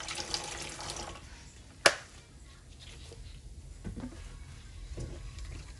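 Kitchen tap water running, stopping about a second in; then a single sharp clack, followed by a few faint knocks from handling.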